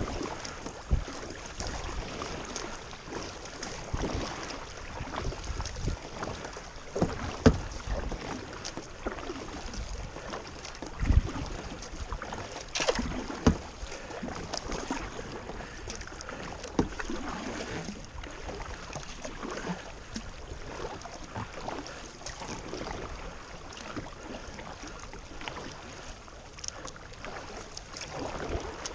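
Kayak paddling on a river: paddle strokes dipping and splashing in the water at an irregular pace, with a few sharper knocks in the middle.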